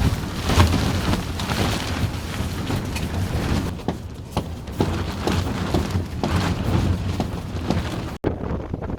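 Strong gusty windstorm shaking a tent, with irregular flapping slaps of the fabric over a deep wind rumble on the microphone.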